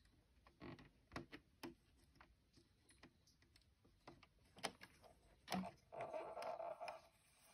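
Faint, scattered clicks of the plastic latch needles of a circular knitting machine being handled by hand, with a brief soft rustle a little before the end.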